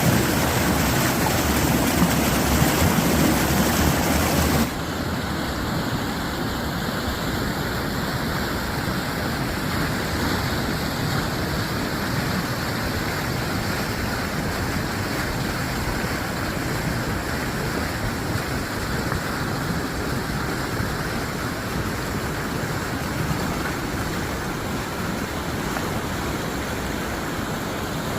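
Flash-flood water flowing down a wadi, a steady rushing noise. For the first five seconds wind buffets the microphone, then the level drops suddenly and only the water goes on.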